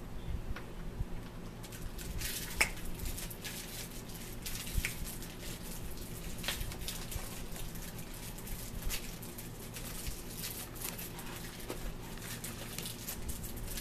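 Scattered light clicks and taps of typing on a laptop keyboard and handling small things on a table, over a steady low hum in the room.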